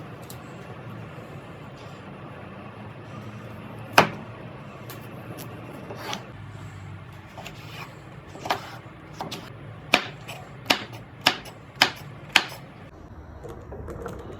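Knife chopping on a cutting board: one loud chop about four seconds in, a few scattered lighter ones, then a run of five sharp chops at an even pace near the end, over a low steady background noise.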